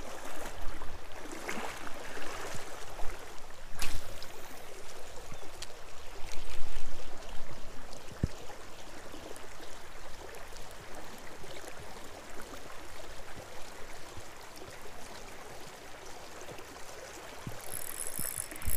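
Steady hiss of rain falling on a flowing river, with occasional knocks from handling the fishing rod. Near the end a high whir begins as the spinning reel is cranked.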